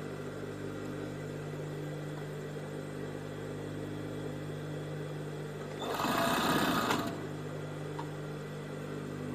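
Industrial four-thread overlock sewing machine: its motor hums steadily, and about six seconds in it runs fast in a burst of stitching that lasts about a second.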